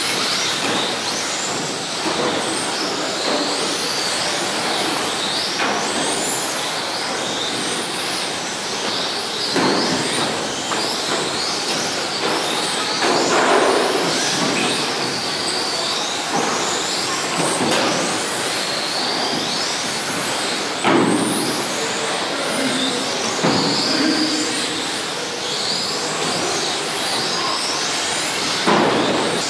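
Several radio-controlled electric touring cars with 17.5-turn brushless motors racing on carpet: overlapping high motor whines rising and falling as the cars accelerate and brake, over a steady tyre hiss, with a few sharp knocks along the way.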